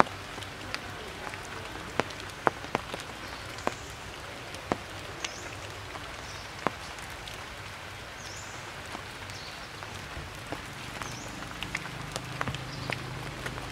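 Steady rain hiss with irregular, sharp drip taps of raindrops landing.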